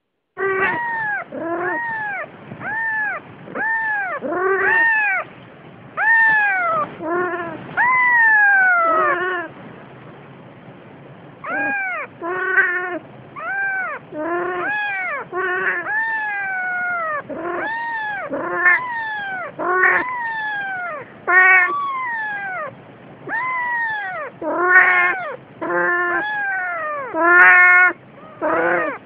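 A days-old Siamese kitten crying over and over: short, high, arching mews, about one or two a second, with a pause of about two seconds midway. It is a newborn kitten calling for its mother.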